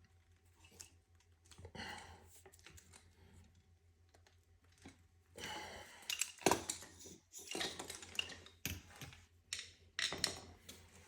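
Irregular small metal clicks, taps and scrapes from pliers and a fuel injector being worked by hand into a metal fuel rail. A short rasping scrape comes about five and a half seconds in, with a few sharper clicks after it.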